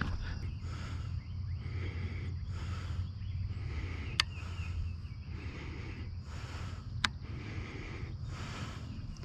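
A person's footsteps, soft and evenly paced on grass and concrete, over a steady low hum. Two sharp clicks stand out, one a little before the middle and one a few seconds later.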